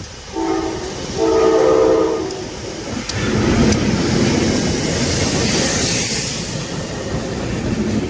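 Locomotive horn sounding two blasts, a short one and then a longer one, followed by the train passing close by. The passing train makes a loud rumble, with wheels clicking over the rail joints.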